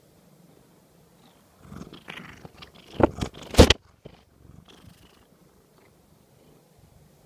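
Domestic cat purring steadily right against the microphone. Loud rubbing and bumping noises come between about two and four seconds in as its fur and head brush over the microphone.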